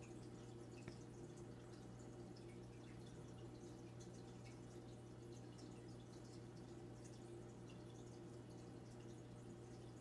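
Faint aquarium water sounds: light dripping and trickling from the tank's filter over a steady low hum.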